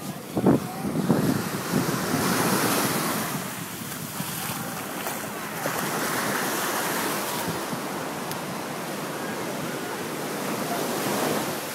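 Small ocean waves breaking and washing up the sand at the shoreline, the surf swelling and easing, with wind gusting on the microphone in the first couple of seconds.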